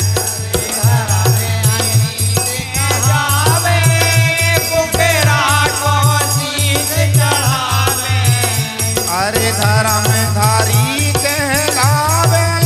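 Bundeli folk bhajan music: a dholak keeps a steady, quick beat under rattle-like percussion and a wavering melodic line.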